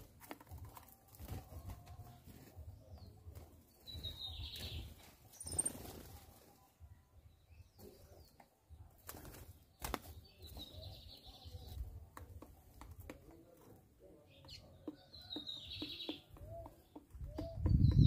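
Birds at a seed feeder: doves' wings flapping as they land and take off, with short high chirps from small birds a few times.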